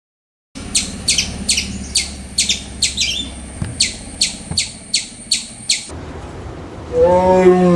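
A bird giving a rapid series of short, sharp, high chirps, about two a second, which stop abruptly. Near the end, a lower, drawn-out animal call of about a second rises and falls in pitch and is louder than the chirps.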